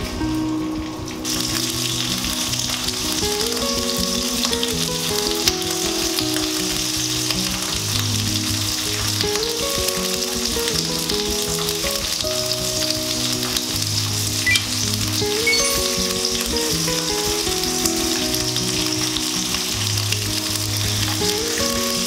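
Sausages sizzling steadily as they fry in oil in a nonstick frying pan, starting about a second in, with a few sharp clicks of metal tongs against the pan. Soft background music plays underneath.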